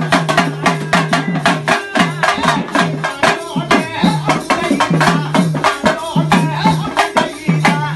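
Fast temple festival percussion music: rapid drum strokes with a rattling beat and a low, pitch-bending drum tone repeating about four times a second.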